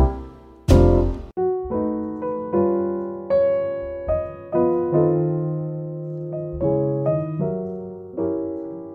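Background music: a slow piano line of single struck notes and soft chords, each note fading away after it is played, with a low hit near the start.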